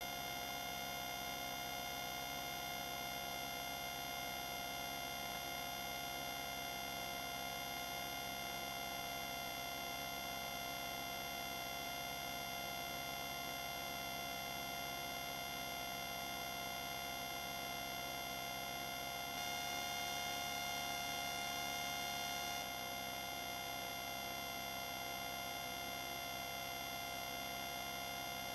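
A steady electronic hum of several fixed tones, unchanging throughout, rising slightly in level for about three seconds around two-thirds of the way through.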